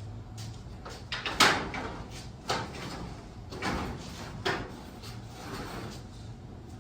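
Sectional garage door, knocked out of its track, being shifted by hand: a series of about five metal clanks, each trailed by a scrape or rattle. The loudest comes about a second and a half in.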